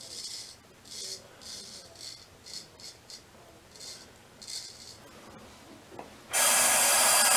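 Straight razor scraping through lathered stubble in a series of short, scratchy strokes. About six seconds in, a tap is turned on and water runs loudly into the sink.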